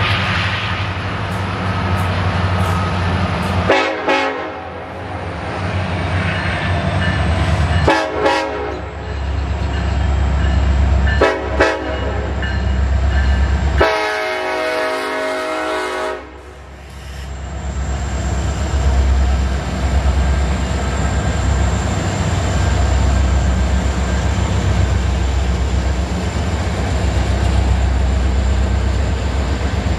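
Diesel freight locomotives sounding their air horn four times: two long blasts, a short one and a final longer one, the standard grade-crossing pattern. The locomotives' engines rumble past, followed by the steady roll of double-stack container cars on the rails.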